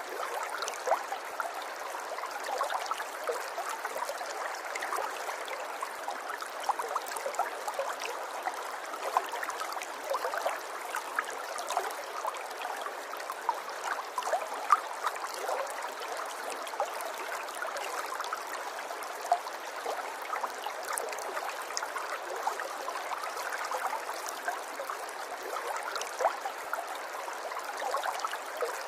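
River water running over stones, a steady rush full of small splashes and trickles.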